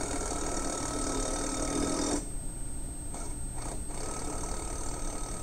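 Cordless electric impact wrench hammering a nut tight on a bracket bolt, running for about two seconds and stopping abruptly, then a few shorter, fainter bursts.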